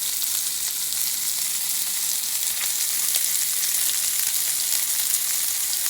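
Prosciutto-wrapped asparagus sizzling steadily in a pan of hot olive oil on medium-high heat, a constant hiss with fine crackling.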